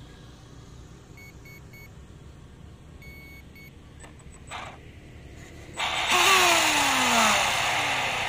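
An RC boat's electronic speed controller beeping its startup tones (three short beeps, then a longer beep and a short one), followed by a brief blip of the brushless motor and then a loud burst of the motor and propeller spinning up in the air, its pitch falling steadily as it spins down.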